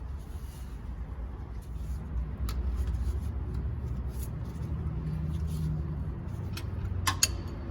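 Light clicks and taps of hand work fitting the serpentine drive belt onto the engine's pulleys, with a couple of sharper clicks near the end, over a low steady rumble.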